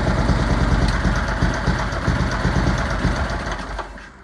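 Murray lawn tractor's rebuilt flathead engine running steadily at idle after warming up, smooth and even with its new rings and honed cylinder. The sound falls off near the end.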